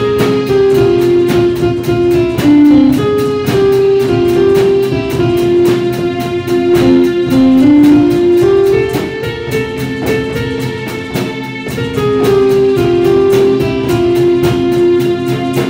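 Live student band playing an instrumental piece: a melody of long held notes moving up and down in steps, over strummed acoustic guitar, drum kit and hand drums (congas and djembe) keeping a steady beat.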